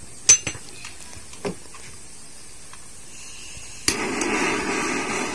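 A couple of sharp clicks, then about four seconds in a click followed by a steady hiss: a flame being used to melt plastic to patch a hole in a drum.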